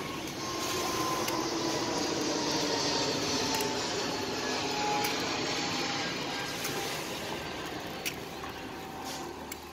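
Steady hum of street traffic and engine noise, with a few light clicks of ice being handled.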